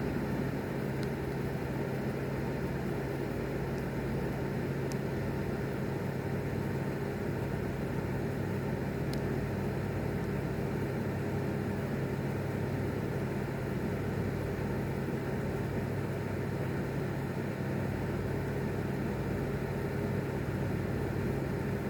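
A steady, even mechanical hum with a few faint high ticks. There is no rumble of thunder.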